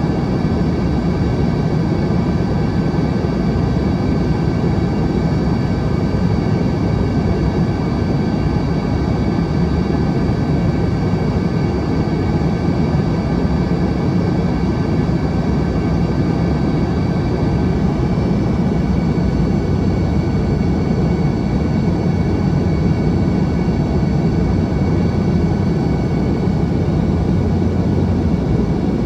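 Embraer ERJ-145 cabin noise: the Rolls-Royce AE3007 turbofans running steadily, with a constant rush of engine and air noise and a few thin steady whining tones on top.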